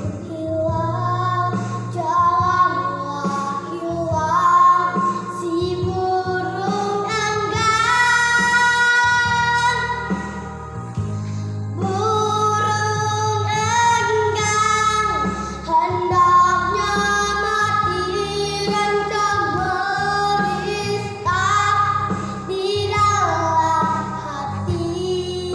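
A young girl singing a solo melody with long held notes, over instrumental accompaniment.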